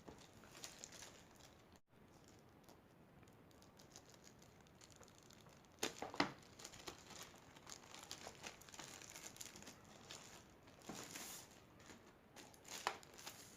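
Plastic wrap being torn and peeled off a keyboard box: faint crinkling and tearing, with a few louder crinkles about halfway through and again near the end.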